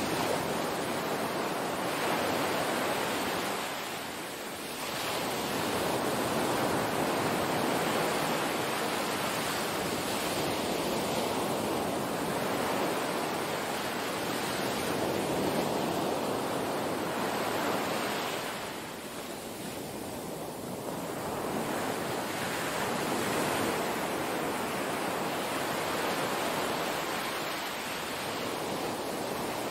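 Small waves breaking and washing up a sandy beach: a steady rush of surf that eases three times and then builds again.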